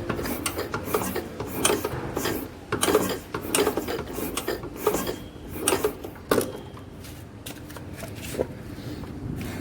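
Hand work on a motorcycle engine's timing gears: irregular metal clicks, taps and scraping as parts and tools are handled.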